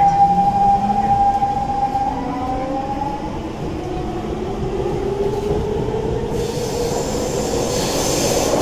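Siemens C651 metro train's GTO VVVF traction inverters whining as the train accelerates, heard inside the carriage: several tones glide steadily upward in pitch over the rolling rumble. A higher hiss joins in about six seconds in.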